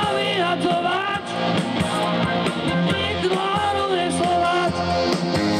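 Live rock band playing: electric guitars, bass guitar, keyboard and drums under a lead vocal, with a steady beat.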